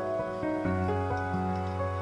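Instrumental background music with held notes and a sustained bass line, the notes changing every half second or so.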